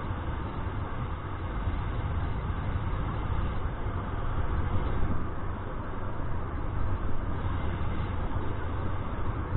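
Wind rushing over and buffeting the camera's microphone as the paraglider flies: a steady low rumbling noise that swells and eases, with brief stronger gusts about five and seven seconds in.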